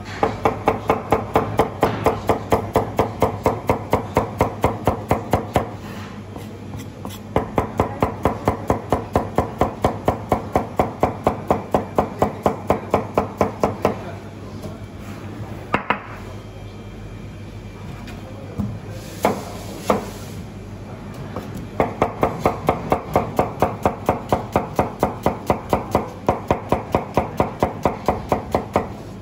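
Fast, even chopping of food with a knife on a board, about four to five strokes a second, each with a slight ring. The chopping stops briefly about six seconds in, and again for several seconds in the middle, where there are only a few single knocks, then starts again.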